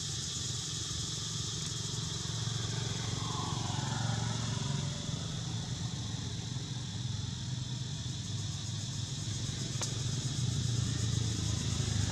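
A motor vehicle engine running steadily, swelling a little about four seconds in and again near the end, over a constant high buzz of insects. A single sharp click comes about ten seconds in.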